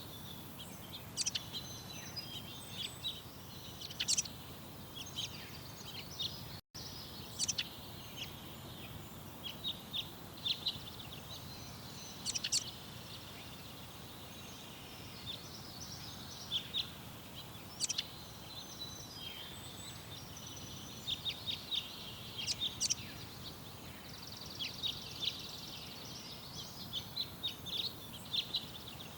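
Small songbirds chirping and calling, with many short high chirps scattered throughout over steady low background noise. The sound cuts out for an instant about six and a half seconds in.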